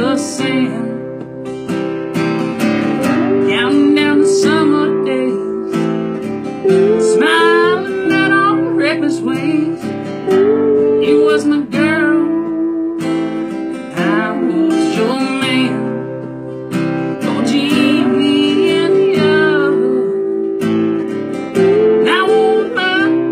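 Music led by an acoustic guitar, strummed and picked, with a wavering melody line over it.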